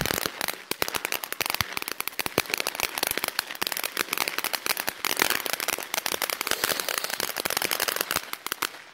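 Consumer ground fountain firework crackling as it sprays sparks: a dense, rapid run of small sharp pops that thins out near the end.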